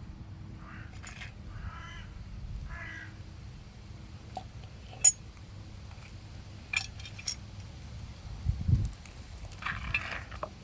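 Three short, harsh animal calls, like a bird's, in quick succession, then scattered clicks and knocks and another call near the end, over a steady low rumble.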